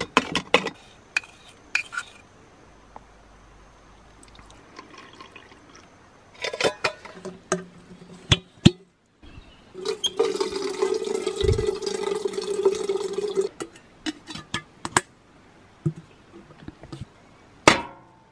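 Metal clinks and knocks of kitchen utensils and a stainless steel hand juicer. A little past the middle, water runs from a water container's tap into a metal kettle for about three and a half seconds. More clinks follow, with one sharp knock near the end.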